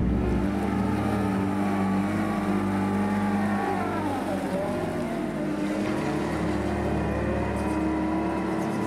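Iguana X100 amphibious boat's engine running steadily, its pitch dipping and then recovering about halfway through.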